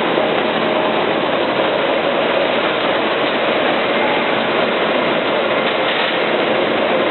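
Goebel Rapid D slitter rewinder, freshly rebuilt, running at steady speed on a test run: an even, continuous machine noise with a faint steady hum.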